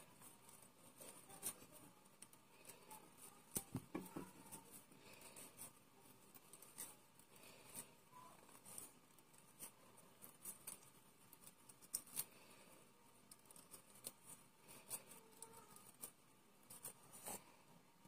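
Faint, irregular scratching and light clicks of a metal fork's tines dragged through the fibres of a cleaning brush, combing out tangled threads and lint.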